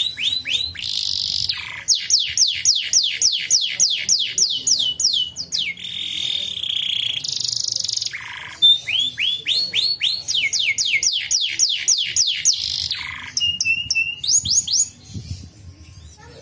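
Canary singing: phrases of fast, repeated downward-sweeping notes, about four a second, broken by buzzy held notes, with a short lull near the end.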